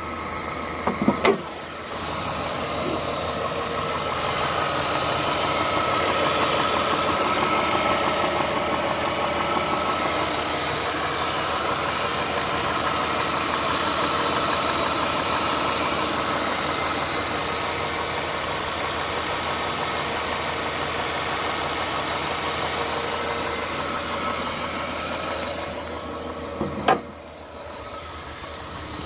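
Chrysler 300M's V6 engine running steadily with a knocking noise that the owner suspects may be rod knock. There are sharp clicks about a second in and again near the end, after which the sound is quieter.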